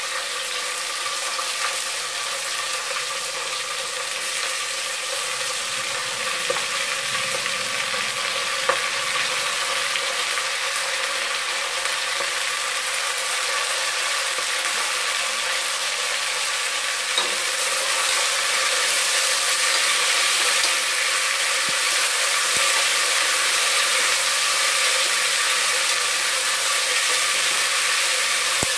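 Chopped vegetables sizzling as they fry in hot oil in a pressure cooker, stirred with a ladle, with a few light clicks of the ladle against the pot. The sizzle grows louder a little past halfway, over a steady faint hum.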